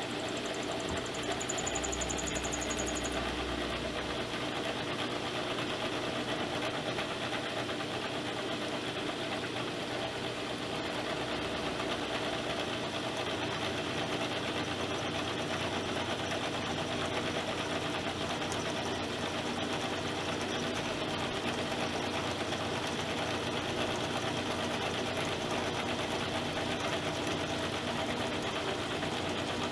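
Milling machine running steadily while its cutter mills a radius full depth in a metal plate, with a brief louder rumble and high whine about two seconds in.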